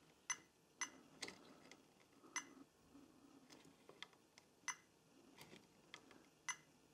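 Metal multimeter probe tips tapping against diode leads on a circuit board during a diode-mode test: about nine faint, sharp ticks at irregular intervals.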